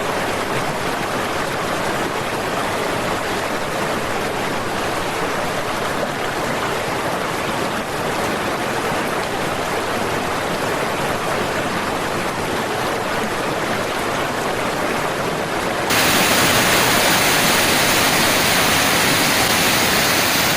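Rushing floodwater, a steady noise of fast-moving water. About sixteen seconds in it switches abruptly to a louder, hissier rush, then cuts off.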